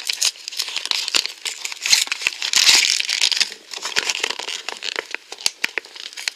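Num Noms Lights cardboard blind box being opened by hand, its packaging crinkling and crackling with scattered clicks, loudest a little past the middle.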